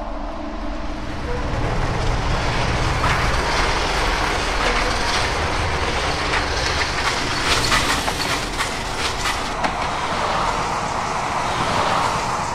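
A steady rumbling, rushing noise that swells about two seconds in, with scattered clicks and clatter through the middle.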